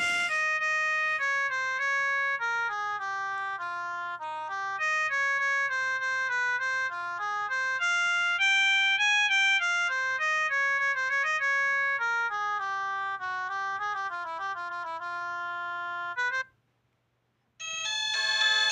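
Keneksi S9 mobile phone ringtones: an electronic melody of single notes that stops about sixteen seconds in, then after a second of silence a brighter, busier ringtone starts.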